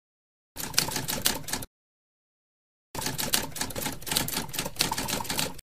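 Typewriter sound effect: rapid key clatter in two runs, about a second and then about two and a half seconds, with dead silence between. It goes with the caption text typing itself onto the screen.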